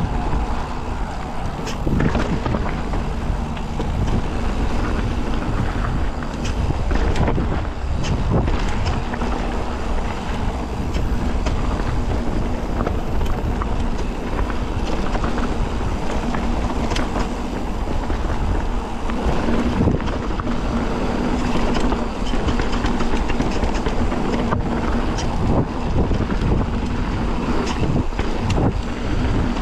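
Mountain bike riding a trail: wind buffeting the camera microphone as a continuous rumble, with the bike rattling and knocking over rough ground throughout.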